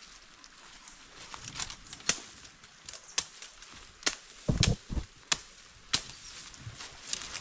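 A hand tool chopping into the leaf-littered forest ground: irregular sharp strikes, with a couple of heavy thuds about halfway through.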